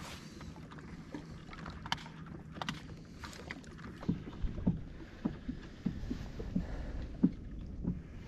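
Water lapping against the hull of a fishing boat, heard as short, irregular low knocks that become more frequent in the second half. A low steady hum runs under the first half, with a few sharp clicks.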